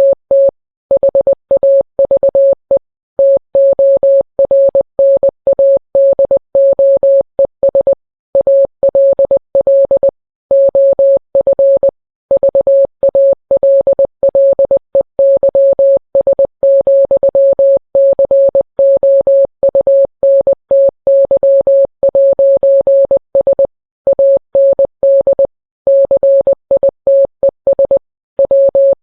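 Morse code sent as a single steady electronic tone, keyed on and off in short and long beeps with brief pauses between letters and words. It spells out a mock emergency-alert tornado warning.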